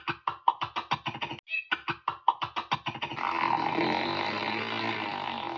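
An airplane engine start dubbed over the picture: a rapid run of sputtering pulses, about six a second with a brief break, then from about three seconds in a steady engine drone.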